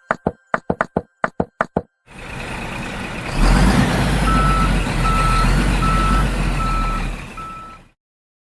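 A rapid run of sharp clicks, then a truck's engine running with a low rumble while its reversing alarm beeps five times, evenly spaced. It all cuts off suddenly near the end.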